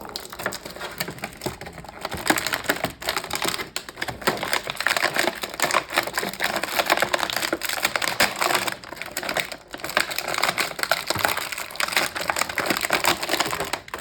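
Stiff plastic packaging crinkling and crackling in a dense run of small snaps as an action figure is worked out of its clear plastic tray: really noisy.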